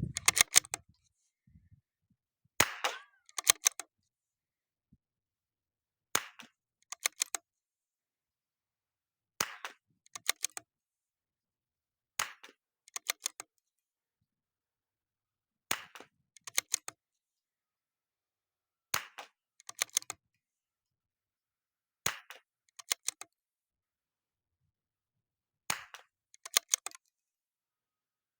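.22 LR bolt-action rifle (CZ 457 American) firing Eley Club standard-velocity rounds, eight sharp cracks about every three seconds. After each shot comes a quick run of metallic clicks as the bolt is cycled to chamber the next round.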